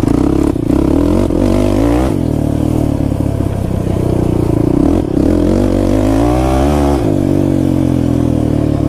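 Kawasaki KFX 450R quad's single-cylinder four-stroke engine revving under acceleration. Its pitch climbs and drops sharply about two seconds in, then climbs again and drops about seven seconds in.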